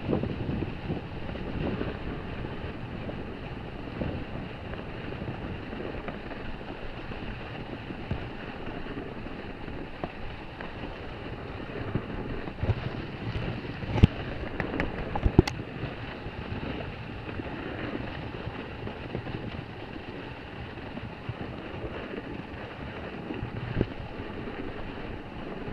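Steady rushing of snow sliding under a snowboard, mixed with wind on the microphone as the camera moves along with the rider. A few sharp knocks sound about halfway through.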